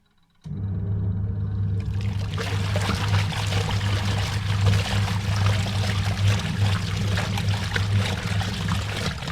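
Washing machine running: a steady hum starts suddenly about half a second in. From about two seconds in, water pours and rushes loudly in the machine over the hum. Both cut back just before the end.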